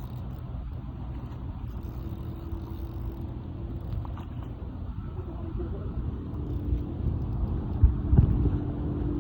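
Steady low rumble with a faint steady hum, growing a little louder later on, with a few thumps near the end.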